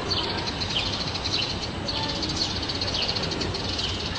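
Short, high, falling bird chirps repeating every second or so over a steady background hiss.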